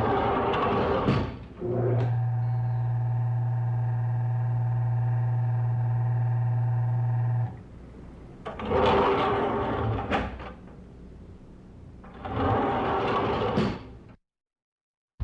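Elevator doors sliding shut with a rumble, then a steady electric hum for about six seconds as the elevator runs, then two more rumbling stretches of door movement as the doors open. It cuts to silence near the end.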